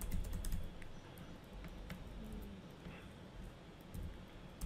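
Computer keyboard typing: a quick run of key clicks at the start, then a few scattered keystrokes around two seconds in, over a low steady hum.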